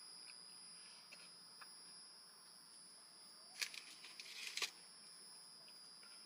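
Quiet room tone with a faint steady high tone. About three and a half seconds in, a second of paper crinkling and crackling as a hand rummages in a takeout food bag.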